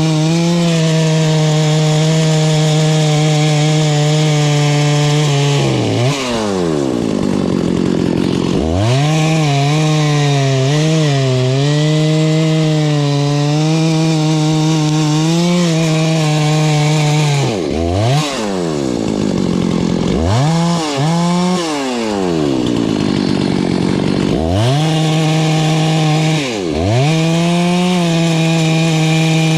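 Husqvarna 288XP two-stroke chainsaw running at high revs with a steady, high-pitched engine note. About four times its pitch sinks far down and climbs back up again.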